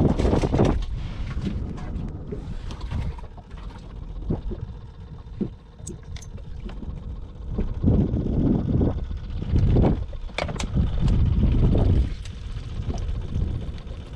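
Wind buffeting the microphone in uneven gusts, with choppy water lapping at the stern of a small fishing boat. A couple of light knocks come about six seconds in and again a little after ten seconds.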